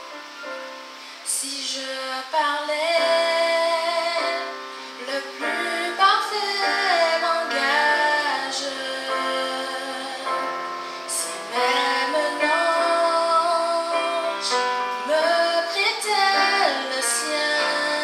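A woman singing into a microphone over live keyboard accompaniment, amplified through a PA; the keyboard plays alone at first and her voice comes in about two seconds in, with long held notes.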